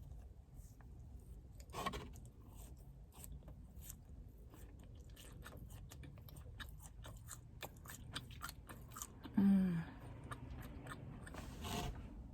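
Mouth sounds of someone chewing a soft matcha mochi donut: many small wet clicks and smacks. About nine and a half seconds in there is a short hummed sound that falls in pitch.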